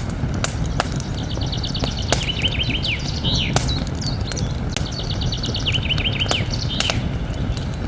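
Campfire crackling with scattered sharp pops over a steady low rumble, while a songbird sings two trilled phrases, each ending in a run of falling notes, about a second and about five seconds in.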